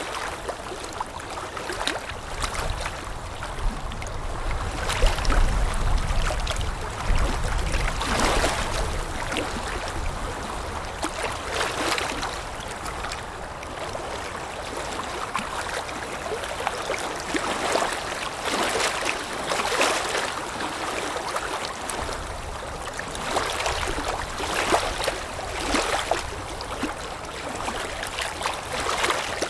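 Water lapping in small irregular splashes every second or two, over a steady wind rumble that swells between about 3 and 8 seconds in and again near the end.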